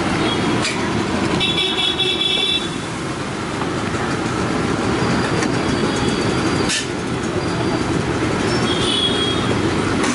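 Steady street traffic noise with a vehicle horn tooting, about a second and a half in and again near the end, and a single sharp metallic clink about seven seconds in.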